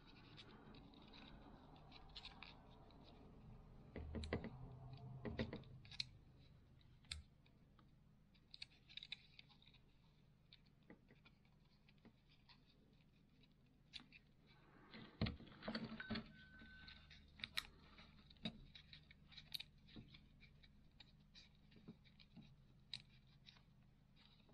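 Faint handling noise of fingers working on the Minelab CTX 3030's display circuit board, ribbon cable and plastic housing: scattered small clicks and scratches, busier about four seconds in and again about fifteen seconds in.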